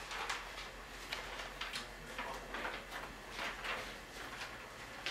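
Soft footsteps at a walking pace of about two a second, over a steady low hum.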